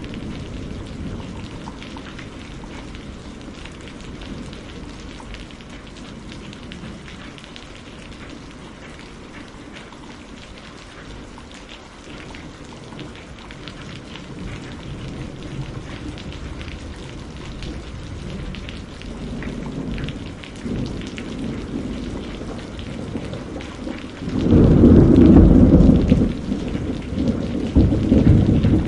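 Steady rain falling, with low rolling thunder underneath. A loud thunderclap rumbles in about three-quarters of the way through, followed by a second, shorter rumble near the end.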